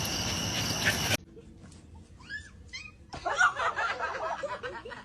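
A steady, loud noise with high whistling tones cuts off suddenly about a second in. After it, a pet animal gives two short cries that rise and fall, followed by a busier stretch of vocal sounds.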